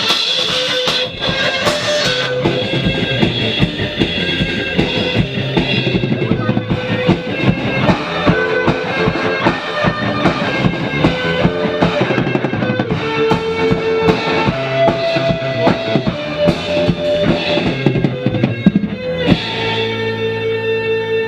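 Rock band playing an instrumental passage with no singing: a drum kit keeps a steady beat under guitars. Near the end the drumming thins and held guitar chords ring out.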